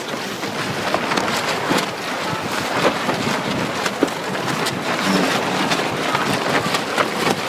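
Heavy wind buffeting the microphone, a steady rushing noise with scattered short clicks and knocks through it.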